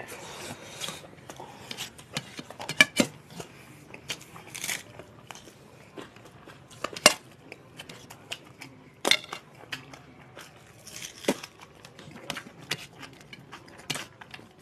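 Close-up eating sounds of people eating rice and curry by hand: chewing, lip smacks and fingers working food on steel plates, heard as irregular sharp clicks and small wet noises, the sharpest about seven and nine seconds in.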